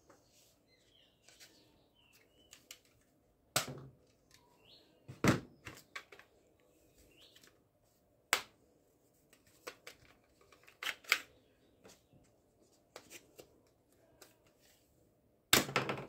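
Hard plastic toy guns being handled: a scattered series of sharp clicks and clacks of plastic parts, the loudest about five seconds in and near the end.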